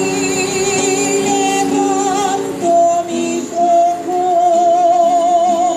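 Music: a voice singing long, wavering held notes over a steady accompaniment.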